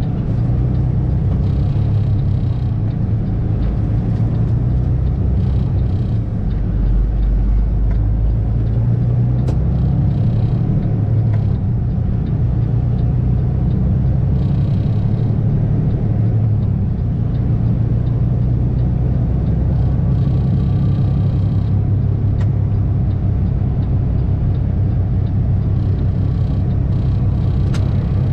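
Flatbed semi-truck's diesel engine running, a steady low rumble.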